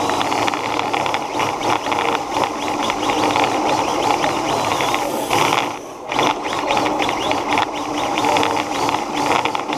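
Radio-controlled car's motor and drivetrain running at speed, heard from on board the car: a continuous busy clatter with a whine that rises and falls. It drops off for a moment about six seconds in, then picks back up.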